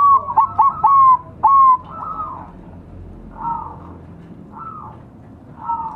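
Several zebra doves (perkutut) cooing: a quick run of overlapping coos in the first two seconds, then a few single coos spaced about a second apart.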